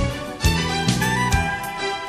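Instrumental break in a Greek laiko song: band music with a steady beat, strong bass notes about twice a second.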